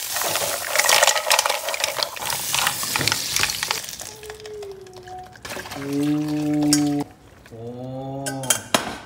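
Mussels sizzling in a non-stick frying pan, with a spatula clinking and scraping against the pan. About four seconds in the sizzle dies down, and held pitched notes take over for the rest.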